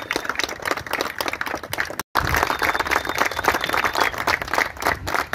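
Crowd applauding, many hands clapping, with a brief dropout to silence about two seconds in.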